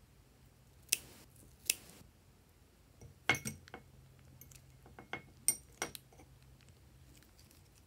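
Scissors snipping twice through the plastic tip of a piping bag, then a scattering of sharp clicks and crinkles while the bag is squeezed.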